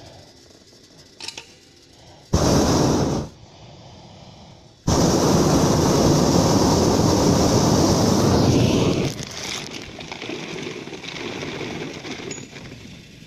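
Hot-air balloon's propane burner firing in two blasts: a short one of about a second, then a longer one of about four seconds. Each starts and stops abruptly.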